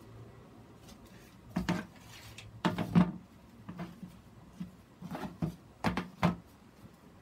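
Hard plastic knocks and clatters, half a dozen in uneven clusters, as a plastic grid mounting board is turned and bumped against a plastic tub.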